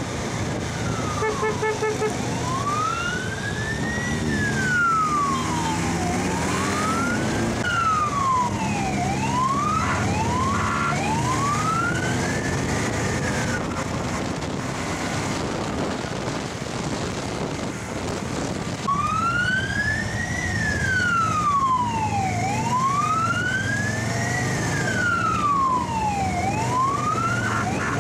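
A wailing siren rising and falling in pitch about every four seconds, stopping for several seconds around the middle and then resuming, over the steady running of motorcycle engines.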